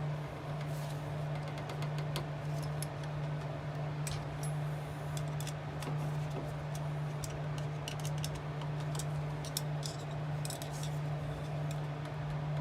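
Milling machine running steadily with a boring head and boring bar cutting metal, a constant motor hum under many light metallic ticks and clinks from the cut and the chips.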